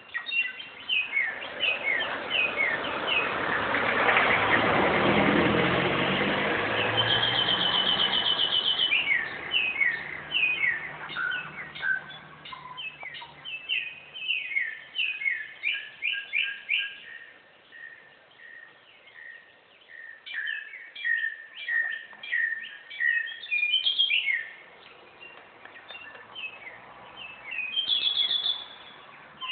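Bare-throated whistler (garugiwa) singing: a long run of short, quick chirping notes, with a rapid trill twice. In the first several seconds a rushing noise with a low hum swells under the song and fades away.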